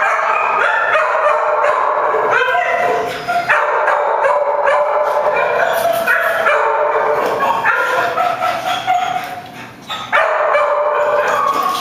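Dogs barking and yelping in high-pitched, drawn-out cries, almost without a break, with a short lull a little before the end.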